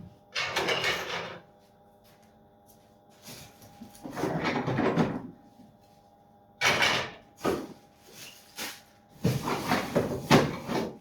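3D-printed plastic parts being handled and rummaged through in a box, four spells of scraping and clattering with short pauses between.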